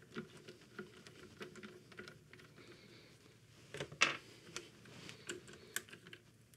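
Faint scattered clicks and ticks of a torque driver tightening a rifle's rear action screw into a wooden stock, with a louder knock about four seconds in.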